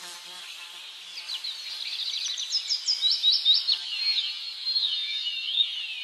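Outdoor insects droning high and shrill, with quick chirping, sweeping notes over the drone that grow louder about two seconds in.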